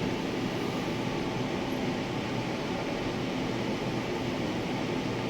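Steady fan hum filling the room, even in level throughout, with no distinct clicks or knocks.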